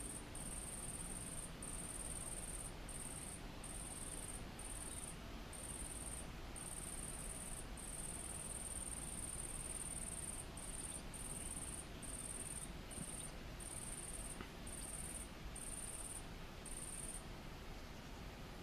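A singing insect's high, thin buzzing song in bouts of about half a second to a second and a half, broken by brief gaps, stopping about seventeen seconds in, over a low, even background noise.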